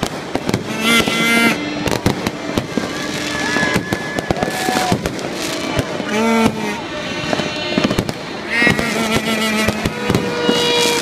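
Fireworks going off in quick succession, a steady run of bangs and crackles, with a horn-like toot blown several times over them.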